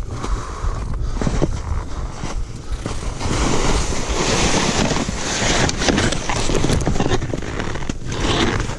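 Skis scraping and sliding over crusty spring snow and brush while side-slipping into a steep, rocky entrance, with wind rumble on the microphone. The scraping grows louder and fuller from about three seconds in until near the end.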